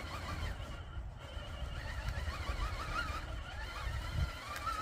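Electric motor and gearing of an RC rock crawler whining as it inches up a very steep incline, the pitch wavering up and down with the throttle, over a low rumble.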